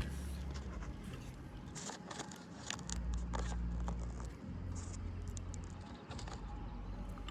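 Scattered light scrapes and clicks of shingle and roofing work being handled, over a low rumble.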